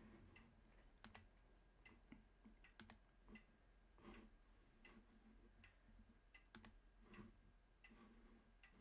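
Faint, irregular computer mouse clicks, some in quick pairs, over near-silent room tone with a steady low hum.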